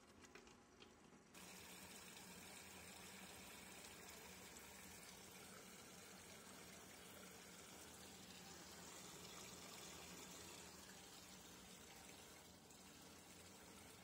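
Consul 13 kg top-load washing machine filling its tub with water: a faint, steady rush of water pouring in, stepping up abruptly a little over a second in.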